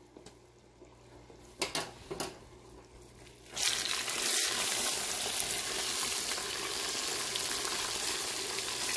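Boiling brown-sugar caramel sizzling as half a teaspoon of baking soda reacts in it and it is stirred quickly with a spatula. A few soft clicks come first, then the hissing starts suddenly about three and a half seconds in and stays loud and even.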